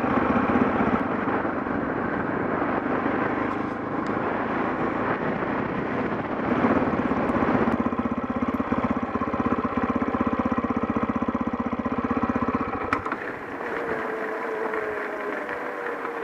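KTM 640 Adventure's single-cylinder engine running steadily under way on a gravel road. About 13 seconds in, the deep pulsing drops away, leaving a lighter engine note with a slowly falling tone.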